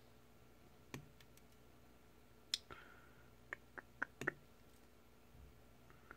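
Small flush cutters snipping the tinned ends of servo-lead wires: sharp clicks, one about a second in, the loudest about two and a half seconds in, then a quick run of five about a second later.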